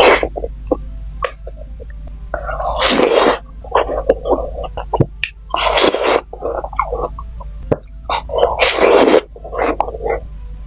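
Close-miked eating sounds: chewing with mouth clicks and smacks, broken by loud hissing slurps about every three seconds.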